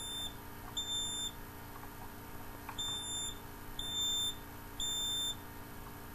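Smoke alarm beeping: five short, high-pitched beeps of about half a second each. Two come close together, then after a pause of about a second and a half come three more about a second apart.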